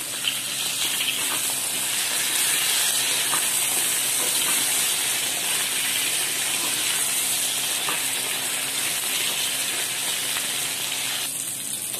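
Eggplant slices sizzling steadily as they fry in hot oil in a wok, with a few faint clicks as a spatula turns them.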